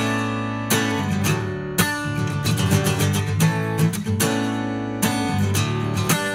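Background music led by strummed acoustic guitar chords.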